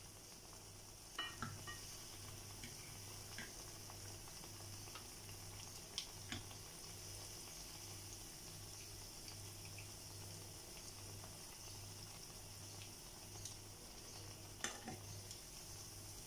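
Batter-coated bananas frying in oil in a nonstick pan: a steady sizzle, with a few sharp clicks of tongs and a fork against the pan, clustered about a second in, around six seconds and near the end.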